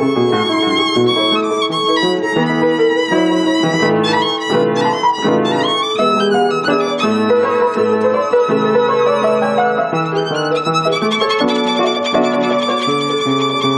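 Violin playing a melody with vibrato over piano accompaniment.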